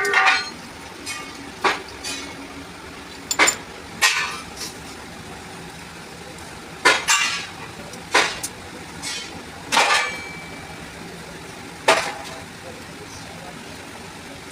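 Metal tools and pump parts clinking and knocking against each other as the diesel pump is worked on by hand, with sharp separate strikes every second or two, some ringing briefly, over a steady low hum.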